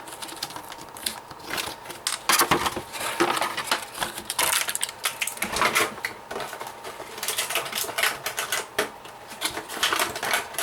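Irregular clicks and rustles of plastic packaging and small plastic toy pieces being handled.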